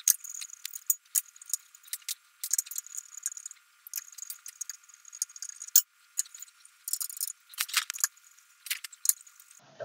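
Small screws and a screwdriver clicking and clinking against the metal case frame of a Commodore 128D as the side screws are put back in. The light, irregular clicks sound thin and tinny, with no low end.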